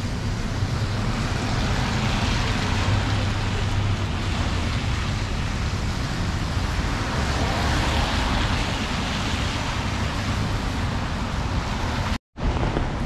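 Heavy rain on a city street: a steady hiss mixed with the low rumble of passing traffic on the wet road. The sound cuts out for a moment near the end, then comes back.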